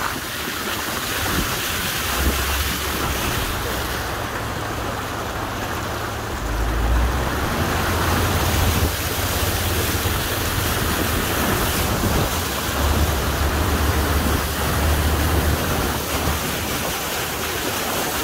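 A low Chevrolet Cruze sedan ploughing through deep floodwater, with water spraying and rushing against the body, heard from inside the car. The water noise swells into a louder low rumble several times.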